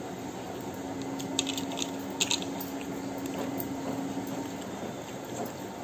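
Fingers mixing and squeezing soft cooked rice with fried greens on a plate, a soft squishing, with a few short clicks about a second and a half and two seconds in.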